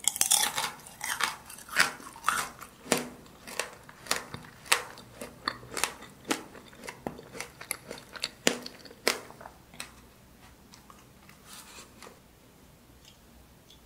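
Mouth chewing a bite of candied apple tanghulu, its hard sugar shell crunching in many sharp cracks. The crunches come thick at first, thin out, and die away about ten seconds in.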